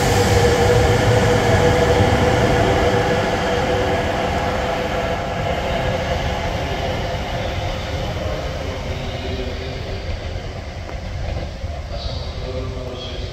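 Tohoku Shinkansen E5 series Yamabiko coupled to an E3 series Tsubasa, departing and running away with the E3 cars at the rear. A rumble carries a steady whine of several tones, and both fade as the train draws off.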